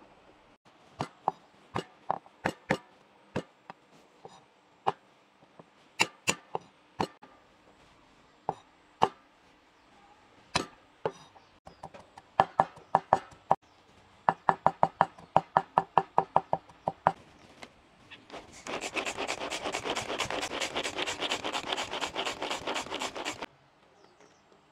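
Kitchen knife chopping on a cutting board: single cuts spaced out at first, then quicker runs of strokes, and near the end a few seconds of very fast mincing.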